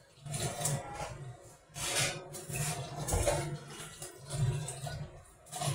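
Raw pork being rinsed by hand at a kitchen sink: irregular bursts of water splashing and the meat and basin being handled.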